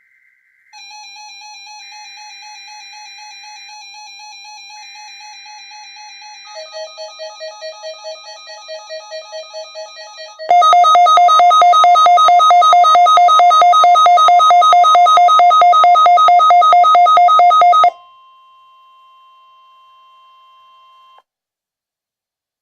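NOAA Weather Radio Required Weekly Test: three short bursts of buzzy digital SAME header tones, while several weather alert radios start beeping their alarms one after another. About ten seconds in, a much louder pulsing alarm joins the steady 1050 Hz warning alarm tone. The pulsing stops near 18 s, and the steady tone runs on alone until it cuts off about 21 s in.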